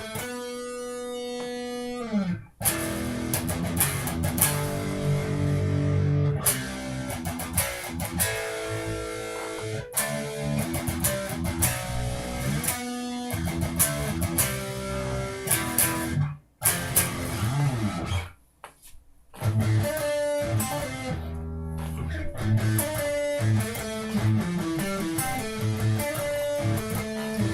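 Electric guitar with a high-gain metal tone from a Line 6 POD HD Pro amp modeller, played as a demonstration: a held note, then chugging low riffs and faster lines, with a few brief stops.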